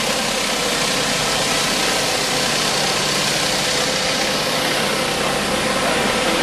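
Pressure washer running steadily while its 18-inch rotary surface cleaner sprays a concrete floor: a steady machine hum under the constant hiss of the spinning water jets.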